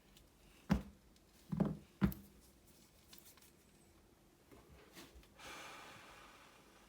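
A few light clicks and knocks of small parts being handled on a workbench, then a short hiss that fades out near the end.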